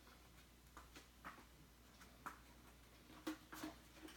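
Near silence in a small room, broken by a few faint, scattered clicks and knocks.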